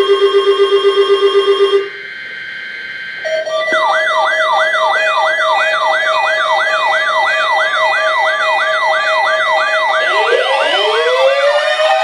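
Electronic alert tones. First a buzzy tone pulsing rapidly, which stops about two seconds in. After a short gap, a steady tone sounds with a siren-like wail that rises over and over, about twice a second, and near the end this gives way to sliding, falling tones.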